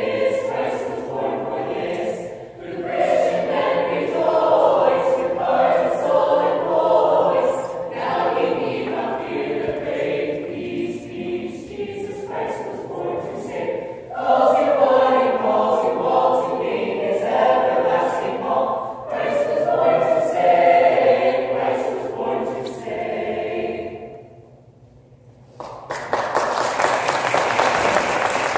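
A mixed a cappella choir of high-school carolers singing a Christmas song. The song ends about 24 seconds in, and after a short pause the audience breaks into applause.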